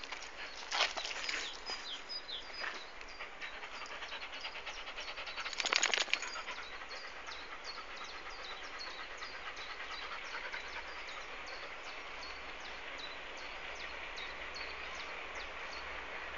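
Distant Class 52 'Western' diesel-hydraulic locomotive approaching along the line, its engine sound growing slowly louder in the second half, with quick repeated bird chirps throughout. Two brief louder noises stand out about one second and six seconds in.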